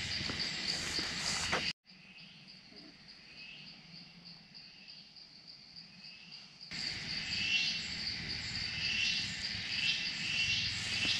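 Insects chirring steadily in a high, pulsing trill. The level drops abruptly about two seconds in and comes back about seven seconds in, where shorter chirps join the chorus.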